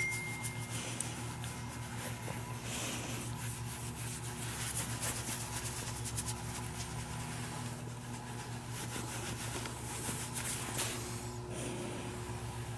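Faint rustling and scratching of a hand petting a dog's head close to the microphone, over a steady low hum.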